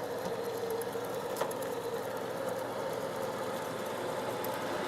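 ILIFE A4 robot vacuum cleaner running on carpet: a steady motor hum with a constant whine, and one faint click about a second and a half in.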